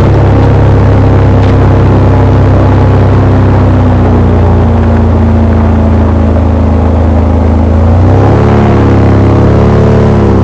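Airboat engine and propeller running loud and steady, then rising and wavering in pitch about eight seconds in as the throttle is worked.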